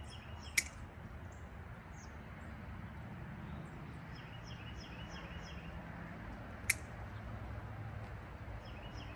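Two sharp snips of hand pruners cutting fig stems for cuttings, about six seconds apart. Birds chirp repeatedly in the background.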